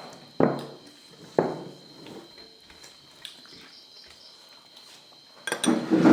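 Close-up eating sounds during a mukbang: two sharp knocks with short ringing tails, about half a second and a second and a half in, then a louder cluster of mouth and eating noises near the end.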